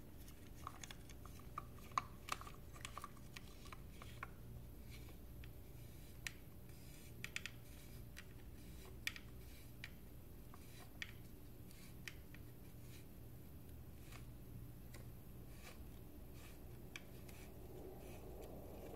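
Faint, scattered metallic clicks and taps, one every second or so, of a drum brake screw, its lock washers and washers, and hand tools being handled while the screw is fitted. A faint steady low hum lies under them.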